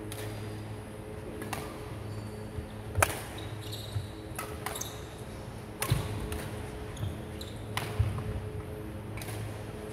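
Badminton rally in a large hall: sharp racket-on-shuttlecock hits roughly every second, with a few short squeaks from shoes on the wooden court, over a steady low hum.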